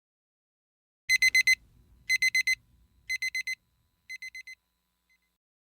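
Electronic alarm beeping: four quick high beeps in a burst, repeated about once a second, four times, each burst quieter than the last until it fades out.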